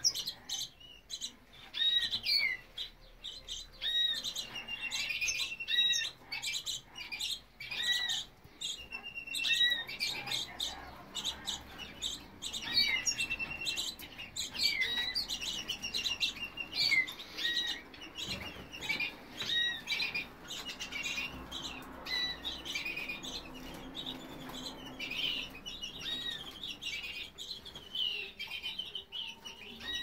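Caged canaries chirping and calling, a short call repeating about every two seconds with quicker chirps over it.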